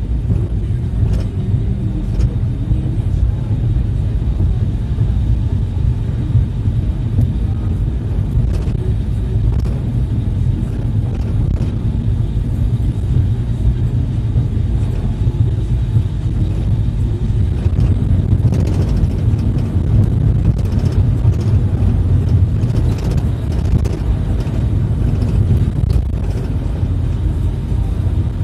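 Minibus driving on the highway: a steady low rumble of engine and road noise, growing a little louder for a stretch past the middle.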